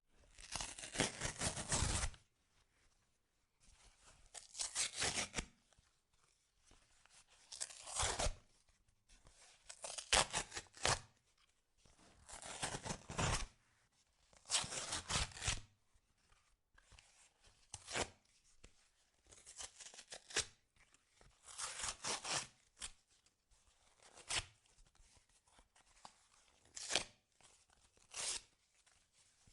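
Corrugated cardboard of a pizza box being torn by hand in a series of about a dozen separate rips. The early rips are long, each one to two seconds, with short pauses between them; from about halfway through they become shorter, quicker tears.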